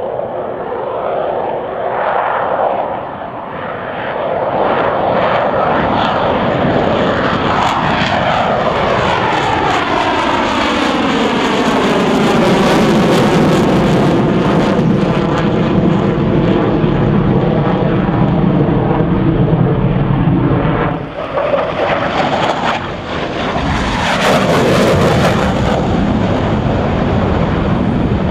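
Military fighter jets, F-16 and F/A-18 Hornet, making loud low passes: continuous jet engine noise that swells as a jet approaches, sweeps and phases as it goes by overhead, drops away suddenly about two-thirds of the way in, then swells again with another pass.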